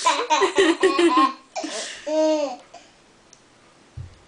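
Laughter in quick broken bursts, then one longer drawn-out vocal sound that rises and falls in pitch, after which it goes quiet apart from a soft thump near the end.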